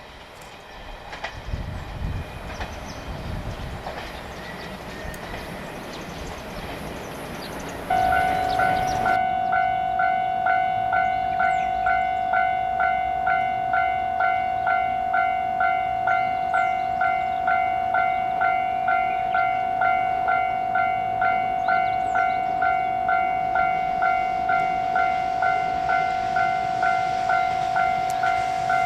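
Train running noise dies away. About eight seconds in, a Japanese level crossing's electronic warning bell starts ringing, a single pitched ding repeating evenly a little under twice a second, warning of an approaching train.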